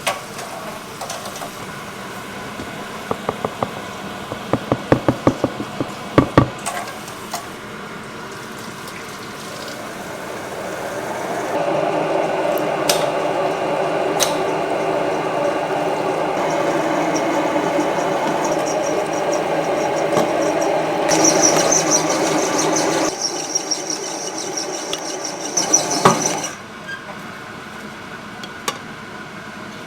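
Kitchen machinery at work: a series of sharp clicks and knocks, then a steady mechanical whir lasting about fifteen seconds, with a high whine joining near its end before it stops.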